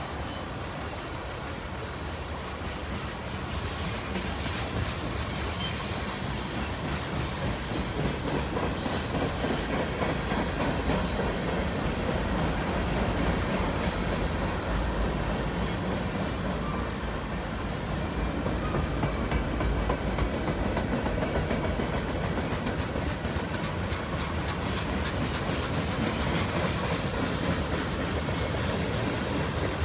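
Freight cars of a mixed manifest train (tank cars, covered hoppers, boxcars and gondolas) rolling past, their steel wheels clicking steadily over the rail joints, with occasional high wheel squeal.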